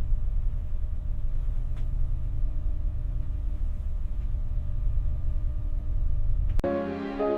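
A deep, steady low rumble with faint sustained tones above it. A second before the end it cuts off and music comes in.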